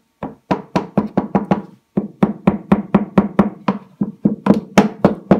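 Hammer tapping rapidly and evenly, about four to five blows a second, driving a greased shaft seal into the bearing housing of a washing machine's plastic outer tub. Each blow rings briefly with a low tone, and there is a short pause about two seconds in.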